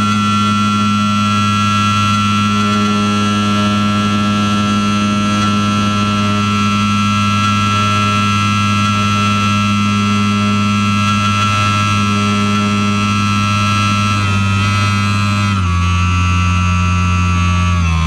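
Propeller-driven motor of a Swift S1 aerobatic aircraft running at steady high power in a climb, heard from the cockpit as a loud, even drone with a high whine. About fifteen and a half seconds in, the pitch steps down as the power is eased back.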